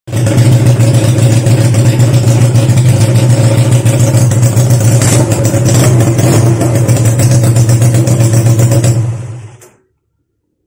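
Honda CB175's air-cooled four-stroke parallel-twin engine running steadily while being warmed up, loud and even, then stopping near the end.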